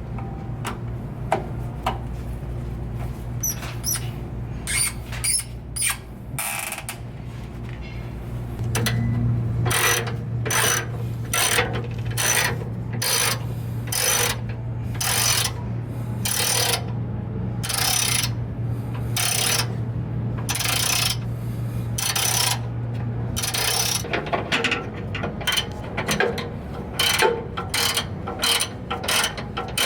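Ratchet wrench working in repeated short clicking strokes, screws being driven back in to secure a vending machine cooling deck. A steady low hum sounds underneath through the middle stretch.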